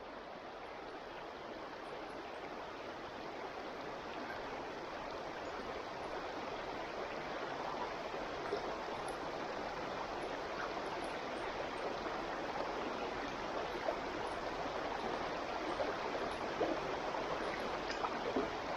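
Stream water flowing steadily, a continuous rushing and trickling that fades in and slowly grows louder, with a few small ticks near the end.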